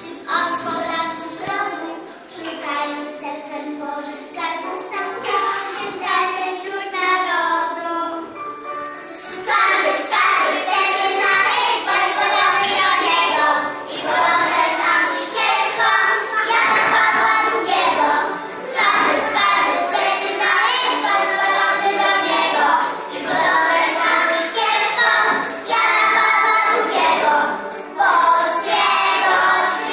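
Group of young children singing a song together in unison, getting louder about a third of the way through.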